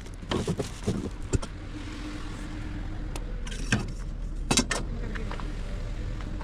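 A vehicle's engine running steadily, with several sharp clunks and knocks over it.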